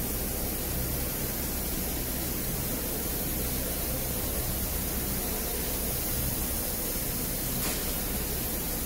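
Large 5-axis CNC router running, its spindle machining a block: a steady, even, hiss-like noise with a faint low hum.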